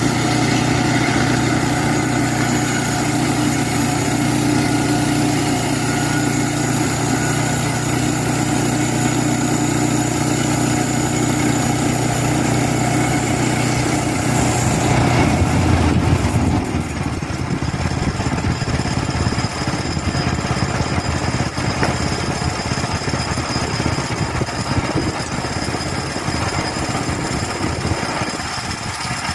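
A small engine runs steadily. About halfway through, its sound turns rougher and briefly louder, then carries on changed, as if it has come under load.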